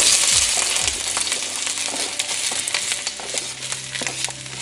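Chopped bell peppers and onion sliding off a cutting board into a hand-hammered carbon steel wok heated to about 350 degrees: a loud sizzle that starts all at once, then eases, with scattered clicks and scrapes as the pieces land.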